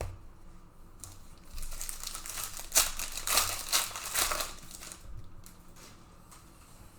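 Plastic trading card pack wrapper crinkling as it is handled and torn open, in a run of rustling from about a second and a half in to about five seconds, loudest near three seconds.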